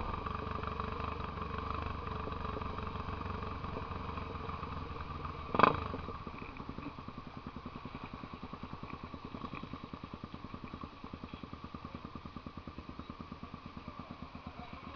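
A small engine running steadily, with one sharp knock a little over five seconds in; after it the engine note goes on quieter, pulsing evenly.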